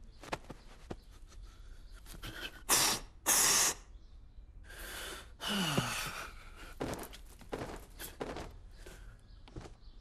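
A man's wordless vocal noises from a cartoon: sharp gasps, with a groan falling in pitch about halfway through. Short clicks and knocks come between them, along with brief rushing noise bursts.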